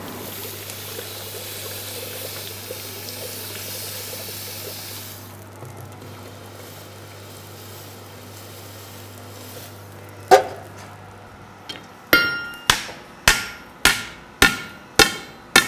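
Water poured over a red-hot wrought-iron bar, which is then quenched in a water trough, hissing for about five seconds as the iron is cooled. Then a blacksmith's hammer strikes the hot bar on an anvil, once and then in a steady run of ringing blows about two a second.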